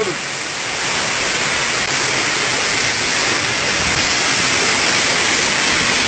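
Small waterfall: water falling over a rock ledge, a loud steady rushing heard close up.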